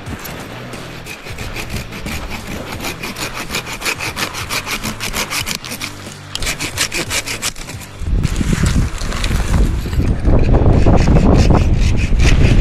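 Folding pruning saw cutting through a spruce branch in quick back-and-forth strokes, about four a second, with a short break partway. After about eight seconds the sawing gives way to a loud low rumble of wind buffeting the microphone as the cut boughs are handled.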